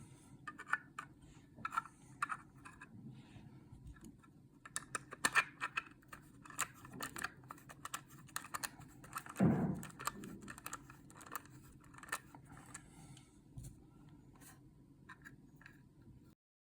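Small clicks and taps of metal nuts and 3D-printed plastic parts being handled and pressed into place by hand, with one duller knock about nine and a half seconds in.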